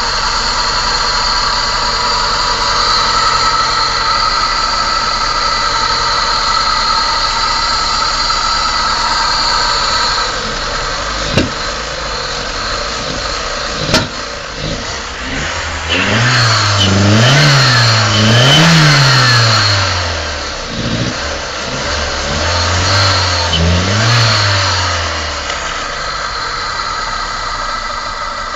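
Fuel-injected car engine with flooded spark plugs being started: after a steady whining hum and two sharp clicks, it catches and is revved in about four uneven up-and-down blips, sneezing (misfiring) as the wet plugs clear.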